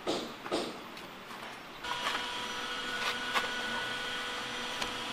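Footsteps on concrete steps, about two a second, fading out within the first second. From about two seconds in, a steady electrical hum made of several fixed tones, with a couple of light knocks.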